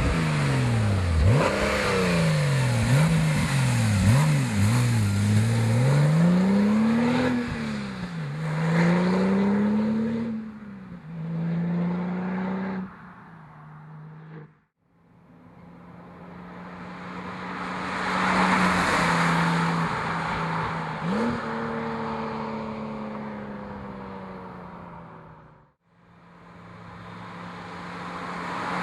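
Stock exhaust of a 2010 Porsche 997.2 Turbo's 3.8-litre twin-turbo flat-six, blipped up and down quickly several times over the first eight seconds, then held at steady revs. After a brief cut to silence, the exhaust note swells and fades as the car goes past. It drops out again and starts swelling near the end.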